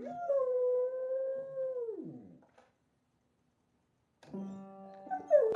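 A dog howling: one long held note that slides down and fades about two seconds in. After a short gap, plucked guitar notes ring out, and a loud rising and falling cry breaks in near the end.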